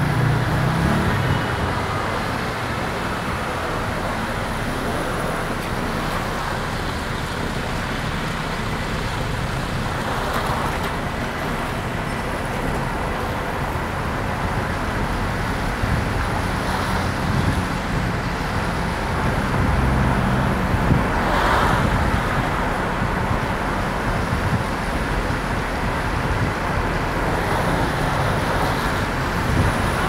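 A car driving on a wet road, heard from inside the cabin: steady tyre and road noise over a low engine hum. A few brief swells come as other traffic passes.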